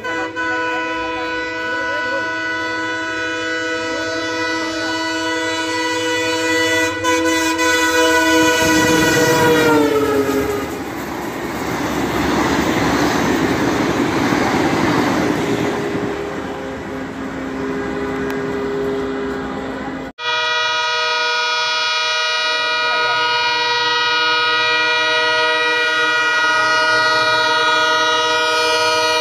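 Diesel locomotive horn sounding continuously as a train approaches at speed, dropping in pitch as the locomotive passes about ten seconds in, followed by the rush and rattle of the coaches going by. After a cut about twenty seconds in, the locomotive's horn sounds steadily again as the train approaches head-on.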